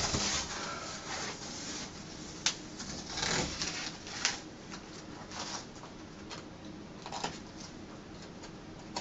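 Scattered light clicks and short rustles of hands handling self-adhesive fabric wallcovering.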